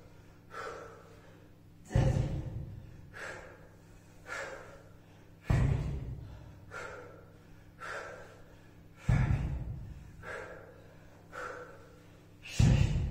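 A person breathing hard through a kettlebell workout, with short sharp exhales about once a second. About every three and a half seconds there is a louder exhale or thump with a sudden start, four times in all.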